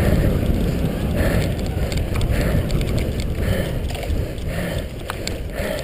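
A cyclocross bike riding fast over bumpy grass and dirt, heard from a camera mounted on the bike: a steady low rumble and rattle, with scattered clicks and wind buffeting the microphone. A soft hiss comes and goes about twice a second.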